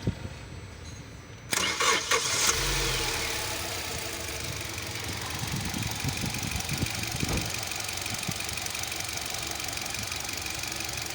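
Hyundai Venue petrol engine cranked and catching about a second and a half in, then settling into a steady idle. It is a car whose owner reports a misfire.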